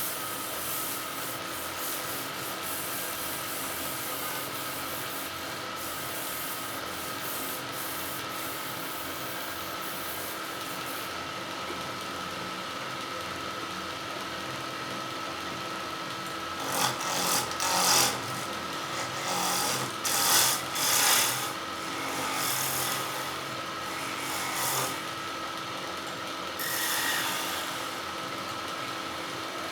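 Wood lathe motor running steadily with a constant hum. In the second half a tool is pressed against the spinning wood in a run of louder scraping strokes, each lasting about half a second to a second.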